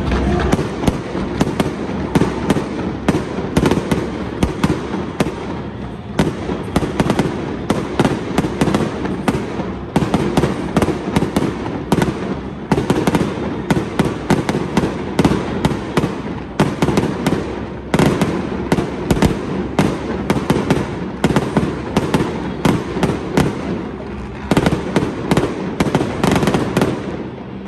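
Fireworks display: a rapid, continuous string of bangs and crackling pops from aerial bursts, stopping just before the end.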